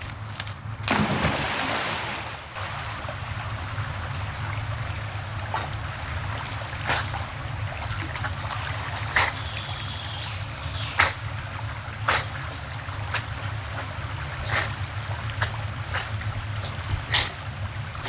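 English working cocker spaniel jumping into a brook with a big splash about a second in, then swimming: steady running and trickling water with short splashes now and then.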